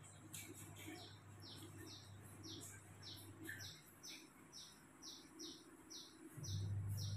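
A small bird repeating a short, high, falling chirp about twice a second, starting about a second in, over a faint low hum that stops for a few seconds in the middle.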